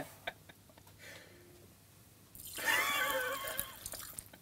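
Chocolate milk pouring from a glass held overhead into an open mouth, the man gurgling through it with a wavering voice for almost two seconds from about halfway in. The first half is near silent.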